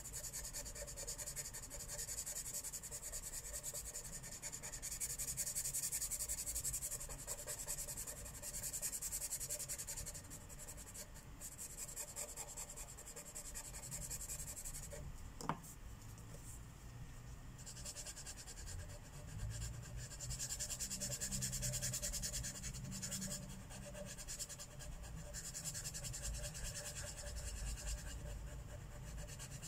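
Felt-tip marker rubbing and scratching on paper while coloring, in stretches of rapid back-and-forth strokes with lighter spells between. A single sharp click about halfway through.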